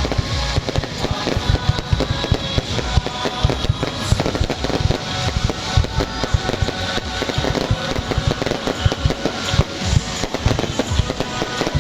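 Fireworks going off in a dense, continuous barrage of bangs and crackles, mixed with music with a steady tune.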